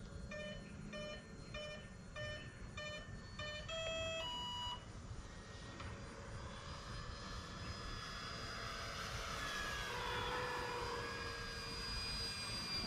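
A run of electronic beeps, a little under two a second, ending in two different tones about four seconds in. Then the Corsair RC warbird's motor and propeller whine grows louder and drops in pitch as it makes a low pass.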